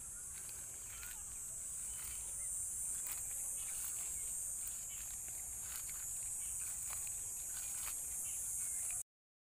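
Slotted metal spatula stirring and scraping chunks of meat and spices around an aluminium pot, heard as faint scattered scrapes and clicks. Over it runs a steady high-pitched insect chorus, the loudest sound. Everything cuts off suddenly about nine seconds in.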